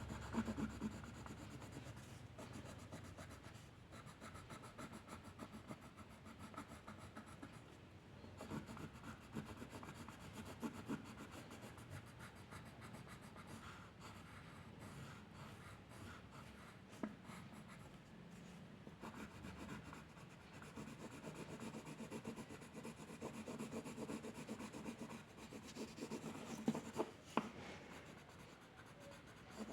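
A drawing tool scratching and rubbing on paper in repeated strokes, as in drawing or colouring, with a few sharper taps near the end.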